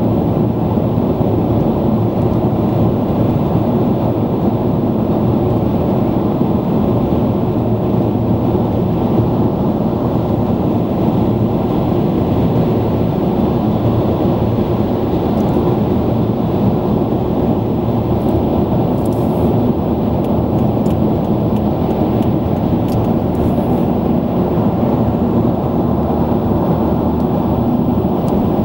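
Steady low rumble of a car driving at motorway speed through a road tunnel, heard from inside the cabin: tyre roar and engine noise, even and unbroken.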